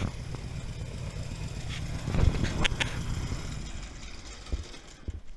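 Airboat engine running at a low idle with a steady low hum, dying away near the end. There are a few sharp knocks and clanks about halfway through.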